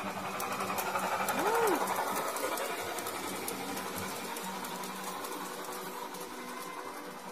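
Model train running past on its track: a steady mechanical whirr of the motor and wheels with faint rapid clicking. About one and a half seconds in there is a short tone that rises and then falls.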